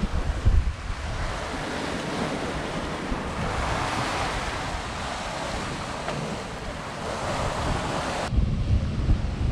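Steady rush of water along the hull of a Hallberg-Rassy 54 sailing yacht under sail at speed, with wind buffeting the microphone. About eight seconds in the sound changes abruptly to a duller, heavier low rumble of wind on the microphone.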